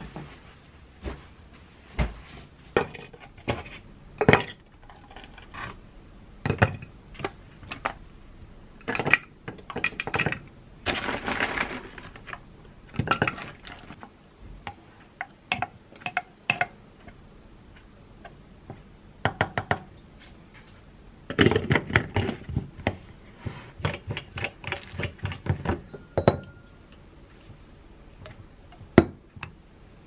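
Scattered clinks and knocks of dishes, utensils and a glass blender jar as fruit and yogurt are put in, in irregular clusters with one short rushing sound near the middle.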